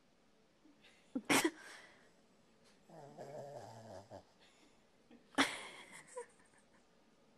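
Pembroke Welsh Corgi giving a short sharp bark about a second in and another past five seconds, with a low wavering growl in between, around three seconds in.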